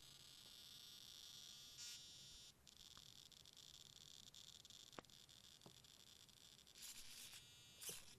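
Tricopter tail servo whining with a faint, steady high-pitched buzz, broken by a few sharp clicks and two short rasping bursts near the end; it is not running smoothly and makes noise.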